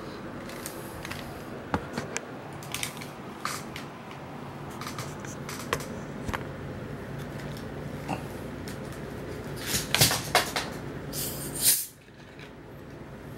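Handling noise as things are moved on a desk: scattered light clicks and knocks over a steady room hum, with a cluster of louder knocks and rustling about ten seconds in, ending in a sharp drop in level.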